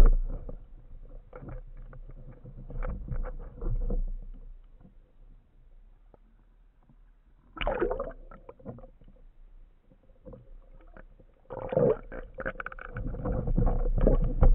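Muffled underwater handling noise from a band speargun: the fading thump of the shot at the very start, then scattered knocks, scrapes and rubbing as the rubber bands are pulled back and hooked onto the shaft to reload, busiest near the end.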